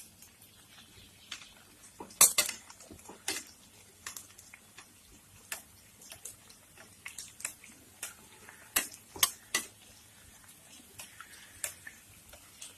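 Metal spoon clinking and scraping against the frying pan and the katori mould as hot oil is ladled over a frying dough cup. There are scattered clicks, the loudest about two seconds in, and a quick run of three near nine seconds.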